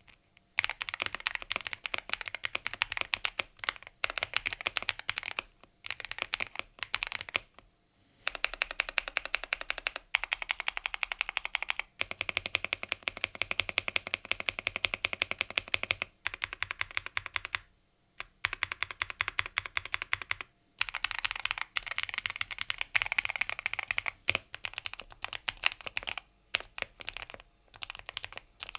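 Yunzii AL68 mechanical keyboard being typed on quickly, in dense runs of keystrokes broken by short pauses every few seconds.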